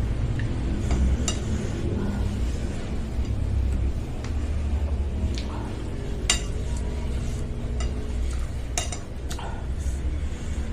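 Spoon and utensils clinking against a bowl while eating bakso, a few scattered sharp clinks, over a steady low background rumble.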